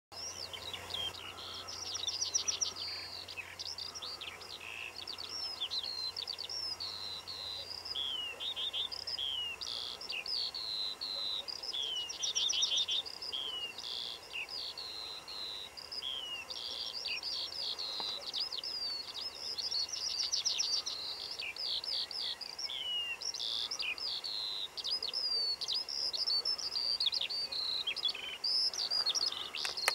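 Eurasian skylark singing its long, unbroken song in flight: a fast, continuous stream of high warbles, trills and chirps without pause.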